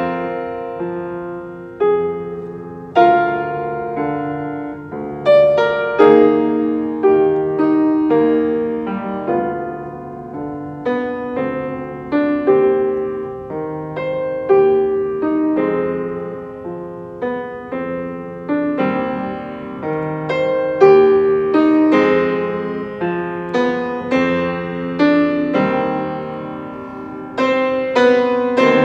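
Solo grand piano playing a slow piece in G minor, its chords and melody notes struck roughly once a second and left to ring and fade.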